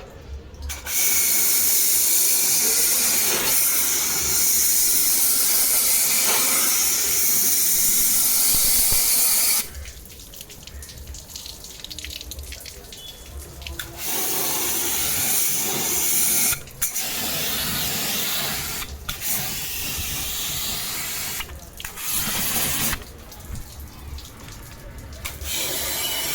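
Water spray hissing as it is jetted onto an air conditioner's outdoor unit to clean it. The spray comes first in one long stretch of about nine seconds. After a pause of about four seconds it returns as several shorter sprays with short breaks between them.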